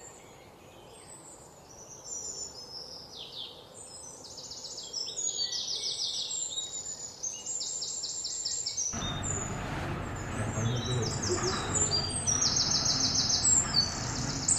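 Small birds singing: repeated quick, high trilled phrases and chirps, several overlapping. About nine seconds in, a steady background noise suddenly comes in beneath the birdsong.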